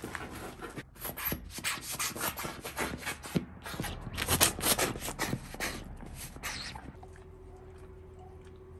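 A German shorthaired pointer mouthing and pushing a rubber ball toy on paving stones: a quick run of rubbing and scraping noises, loudest a little past the middle, dying away about two-thirds through. A faint steady hum is left near the end.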